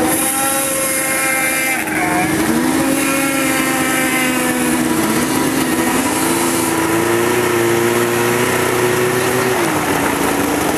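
Snowmobile engines held at high revs, two engine notes at once, their pitch rising and dropping several times as the throttle changes.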